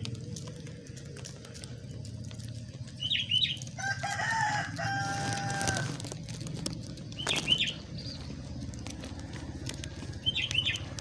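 Birds around feeding pigeons. A rooster crows once, a held call of about two seconds, starting about four seconds in. Short high chirps come every three to four seconds, with a loud flutter of wings at about seven and a half seconds.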